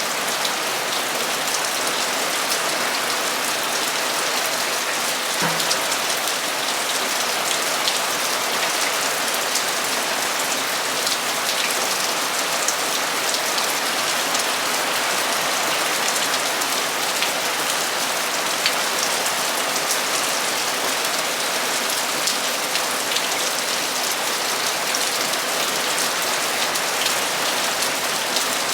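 Torrential rain falling steadily on a metal roof, an even hiss with scattered sharper drop ticks.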